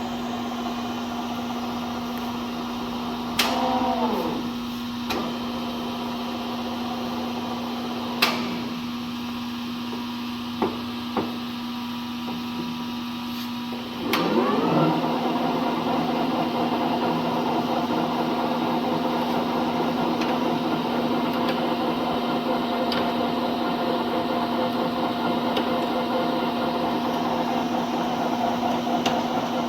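LeBlond Regal engine lathe running under power, a steady machine hum with a few sharp clicks. Its pitch sweeps as the spindle changes speed around 4 seconds in and again around 14 seconds in, and after the second change it runs louder and fuller.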